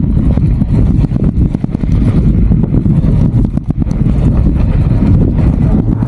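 Wind buffeting the microphone while cycling: a loud, steady low rumble with many small clicks and crackles running through it.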